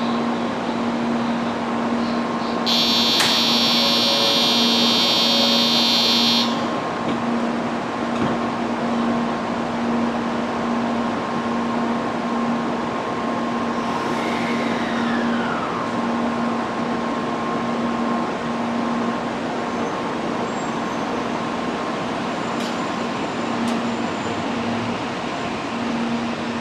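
Shinkansen platform departure signals: a steady low electronic tone that pulses evenly throughout, with a shrill high ringing for about four seconds a few seconds in, as the doors close for departure. A short falling tone comes around the middle.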